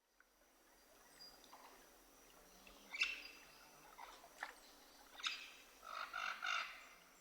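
Birds chirping faintly over a quiet outdoor background, with a few short calls spaced out, then a brief flurry of calls near the end.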